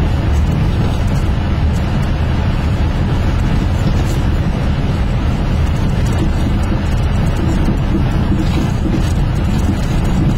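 Vehicle driving up a dirt road, heard from inside the cab: a steady low rumble of engine and tyres on the unpaved surface.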